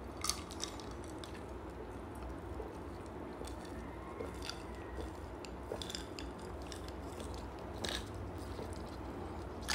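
Quiet sipping of an iced drink through a straw: faint swallows and small mouth clicks over a low steady hum.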